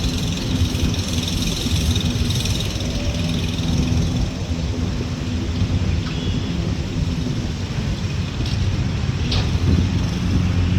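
Toro Smart Stow self-propelled gas push mower's engine running steadily while mowing.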